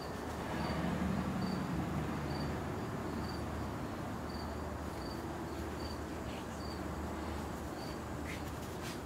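A cricket chirping in a steady rhythm, one short high chirp about every 0.8 seconds, over a steady low hum.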